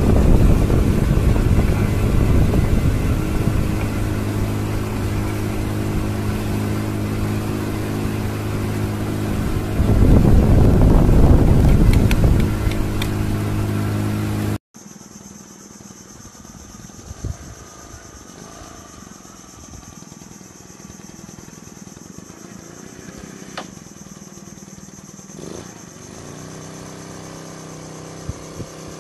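A small pontoon boat's modified outboard motor running steadily with an even engine note. It swells louder for a couple of seconds near the middle, then cuts off abruptly halfway through. After that there is only a much quieter background with a faint steady high tone and a few light knocks.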